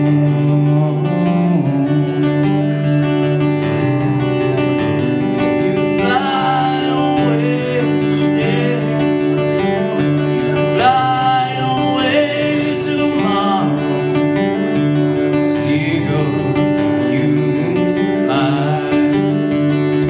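Acoustic guitar strummed steadily in a song, with a man's voice singing a few wavering phrases over it from about a third of the way in.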